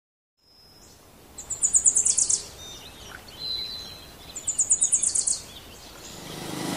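A songbird sings two bursts of rapid, evenly repeated high notes, each about a second long and about three seconds apart, with a couple of short thin whistles between them over faint outdoor background hiss. Near the end a rising rush of noise sets in.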